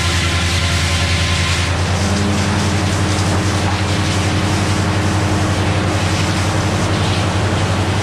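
Naturally aspirated Cummins diesel power unit running steadily under load, driving a Meadows No. 1 circular sawmill as the log carriage moves. About two seconds in, a louder hiss and a second steady hum join in.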